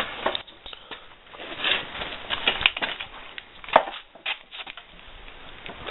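Handling noise: a plastic sheet rustling and crinkling with scattered clicks and knocks of metal parts as the swamp-runner's long shaft is fitted to the small engine; one sharper knock about three and a half seconds in.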